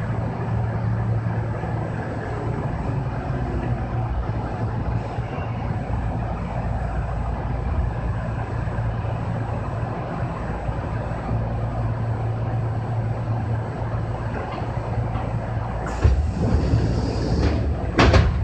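Kintetsu 6020-series electric train running, heard from behind the driver's cab: a steady low motor hum over rolling rumble from the rails. Near the end comes a sudden louder rush lasting over a second, then a sharp crack.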